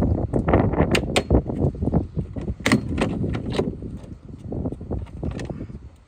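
Plastic interior trim being worked loose and pulled off by hand: rubbing and rattling plastic with several sharp clicks and snaps as the retaining clips let go.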